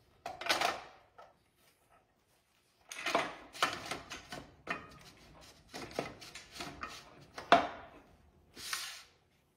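Clutch parts being handled on an engine flywheel: irregular metal clinks, rubbing and scraping as a clutch alignment tool is worked into the clutch disc's hub. There is one sharper knock about three-quarters of the way through.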